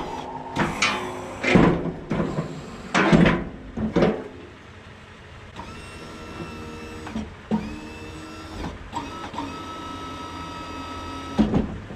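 Several loud clunks in the first few seconds, then a snowplow's electric-hydraulic pump motor whining in several short runs, starting and stopping as the blade is lowered and angled.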